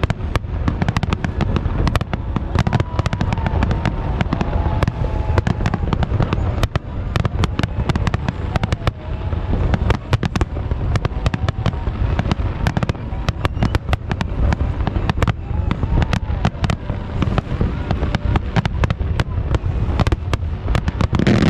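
Aerial fireworks going off in a rapid, unbroken barrage of bangs and crackles over a continuous low rumble.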